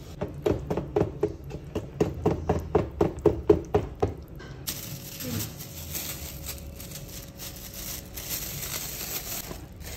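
Wooden spatula stirring thick moi moi bean batter in a plastic bowl: a rhythmic wet slapping of about four strokes a second that stops about four seconds in. After that there is only a quieter rustling as a plastic bag is handled over a cup.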